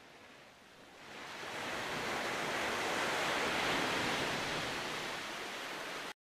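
Small waves breaking and washing up a shell-strewn beach: a steady surf noise that swells in over the first couple of seconds and cuts off abruptly near the end.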